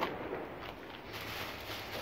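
A light tap, then clear plastic wrapping rustling and crinkling as it is handled, growing brighter about halfway through.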